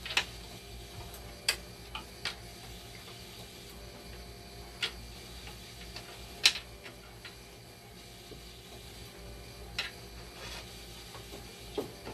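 Scattered sharp clicks and taps of circuit boards being handled and slid against the card guides and connectors of a dialysis machine's board cage, the loudest about halfway through, over a steady low hum.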